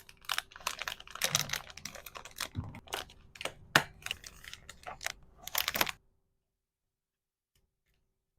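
Small plastic items and packaging handled by hand: a quick, irregular run of clicks, taps and crinkles that stops abruptly about six seconds in.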